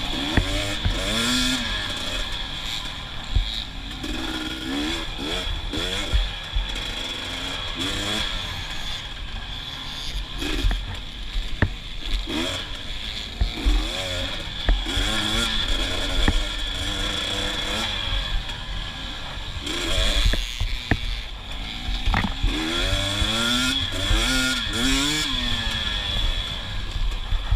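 KTM 250 XC TPI single-cylinder two-stroke dirt bike engine revving up and down over and over under race throttle, with sharp knocks scattered through it.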